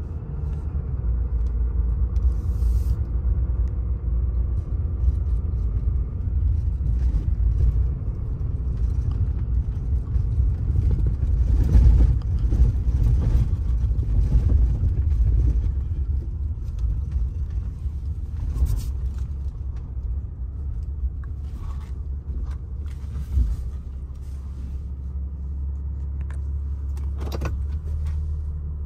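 Pickup truck cab interior while driving slowly on a dirt road: a continuous low rumble of engine and tyres, with scattered clicks and rattles. The rumble becomes steadier and more even near the end.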